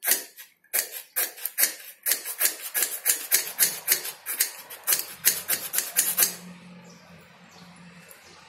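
A metal striker scraped again and again down a ferrocerium fire-starter rod to throw sparks onto tinder, in quick rasping strokes about four a second. The scraping stops about six seconds in.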